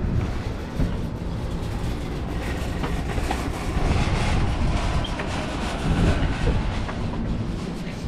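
Bird electric scooter rolling over rough concrete pavement: a steady rumble and rattle from its small wheels and stem, with occasional clicks.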